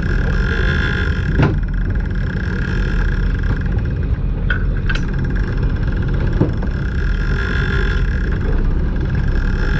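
Boat engine running steadily, with a few short sharp knocks about one and a half, four and a half and six and a half seconds in.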